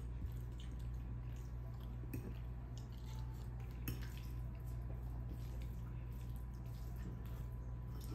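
A fork clicking and scraping now and then in a bowl of food, a few faint clicks, over a steady low hum.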